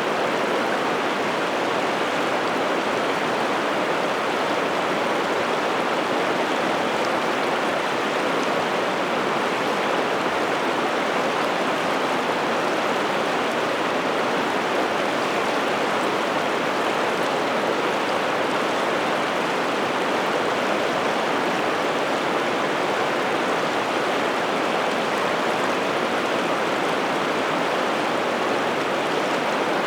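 Steady rush of a large river's flowing water, Piteälven, even and unbroken.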